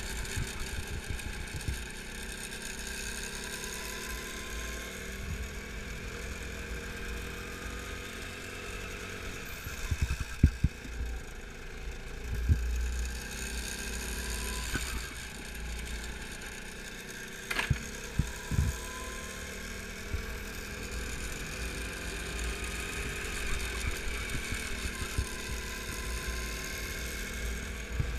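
Go-kart engine heard onboard while lapping, its pitch rising along the straights and falling off into the corners, over low wind rumble on the microphone. A few sharp thumps come through, the clearest about two-thirds of the way in.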